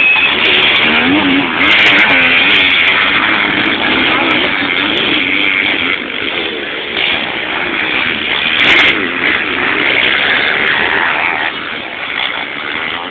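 An engine running, its pitch rising and falling as it revs.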